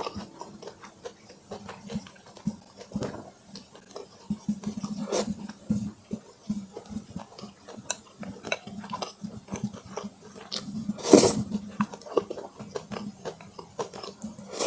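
Close-miked chewing of braised pork in sauce: wet, irregular mouth clicks and smacks, with one louder burst about eleven seconds in.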